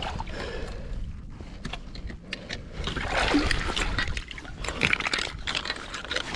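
Shallow seawater splashing and trickling as hands work under a stone and lift it out of a rock pool, with short scrapes and clicks of handling against the rock.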